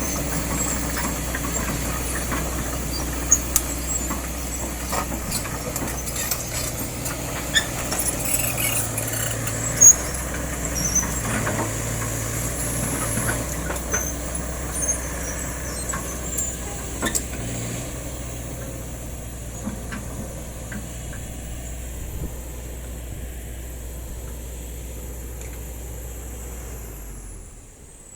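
Kobelco excavator's diesel engine running steadily, with scattered sharp clicks and knocks over it; the engine sound drops away near the end.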